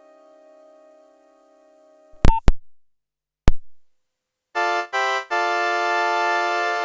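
Nokia 1112 built-in ringtones, heard directly from the phone's earphone output. One ringtone's last chord fades away, a few sharp clicks sound in the silence, and about four and a half seconds in the next ringtone starts with chords of synthesized notes.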